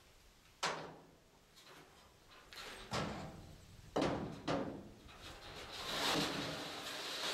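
Wooden stakes and boards knocking against a utility trailer's wooden bed and sides as they are handled, four sharp knocks in all, two of them close together. From about six seconds in comes a rough scraping noise, like wood or wire dragged across the bed.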